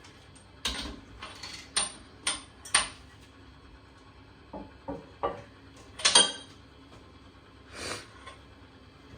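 Hard toilet repair parts being handled and set down: about nine irregular clinks and knocks, some with a short ring.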